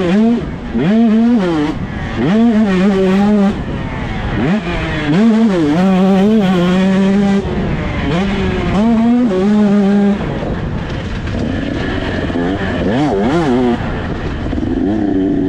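KTM 125 SX single-cylinder two-stroke motocross engine revving hard through the gears. Its pitch climbs, holds high and drops again in repeated surges, with a rougher, less steady stretch about two-thirds of the way through before it climbs again.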